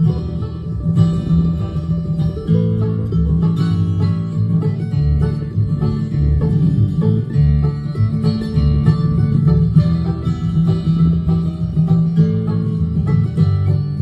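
Live bluegrass band playing an instrumental passage: plucked banjo and acoustic guitar over an upright bass line.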